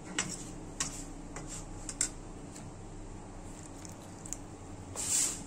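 A steel spoon stirring flour dough in a steel bowl, clinking against the bowl a few times, with a short scraping hiss near the end.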